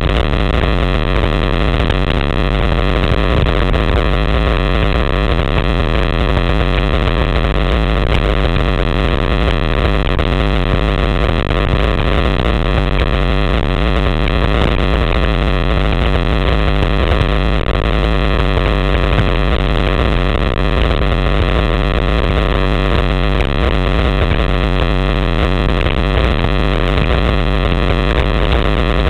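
Loud, steady wind rushing over the microphone of a bike-mounted camera on a fast road-bike descent, with a low rumble underneath.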